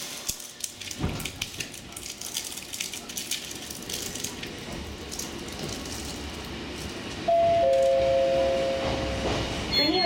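Toyama Chihō Railway electric train pulling away from a station, its wheels and motors rumbling, then its horn sounding one steady two-note blast about seven seconds in, lasting about two seconds, the higher note starting a moment before the lower.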